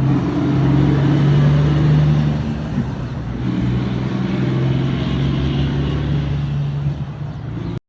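Volvo FH truck's straight-six diesel engine rumbling with a strong, steady note that dips briefly about three seconds in, then holds steady again until it cuts off abruptly near the end.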